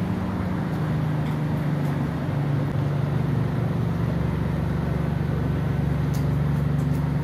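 An engine running steadily: a constant low hum that does not rise or fall.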